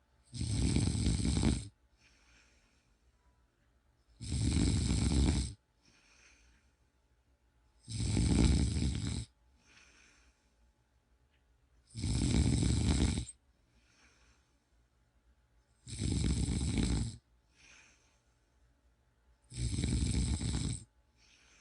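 A person snoring in a steady rhythm: six loud snores about every four seconds, each lasting just over a second, with a faint breath between each.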